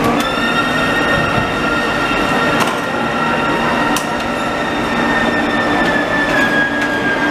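Israel Railways double-deck passenger coaches rolling slowly past with a steady high-pitched metallic squeal from the wheels, which sags slightly in pitch near the end, over a low rumble. Two sharp clanks come from the running gear partway through.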